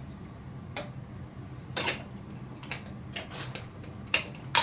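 Plastic parts of a single-serve coffee maker's grinder attachment being handled and fitted together: a series of light clicks and knocks, the loudest a little under two seconds in and right at the end.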